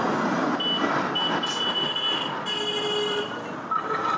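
A motor vehicle's engine running close by as a steady rumbling noise, with a thin high steady tone over it for about three seconds.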